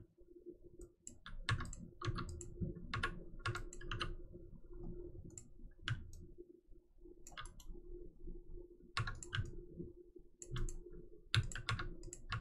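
Computer mouse and keyboard clicks, at irregular intervals and sometimes two or three in quick succession, over a faint steady hum.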